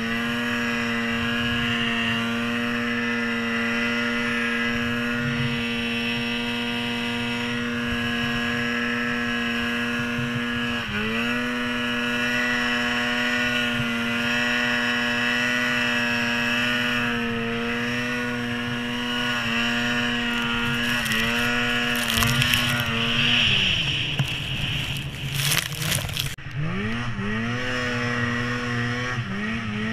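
Polaris PRO RMK 800 snowmobile's two-stroke twin engine running at high, steady revs through deep powder. About eleven seconds in the revs dip briefly and pick up again; near the end the throttle comes off for a moment amid a rush of noise, then the engine revs back up several times.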